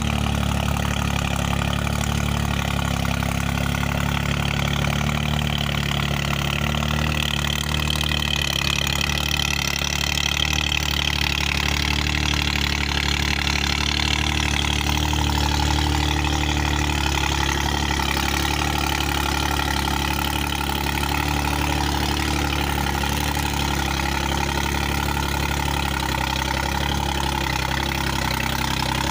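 New Holland 3600-2 tractor's three-cylinder diesel engine running steadily under load while pulling a seven-tine cultivator through dry soil.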